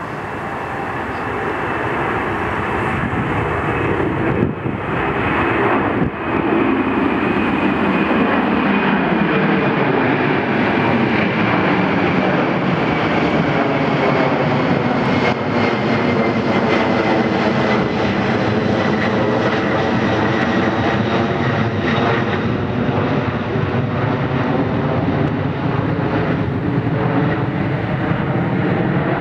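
Jet airliner engines running loud and steady as an McDonnell Douglas MD-11 trijet passes overhead, a high whine slowly falling in pitch as it goes by. The sound briefly dips twice in the first six seconds.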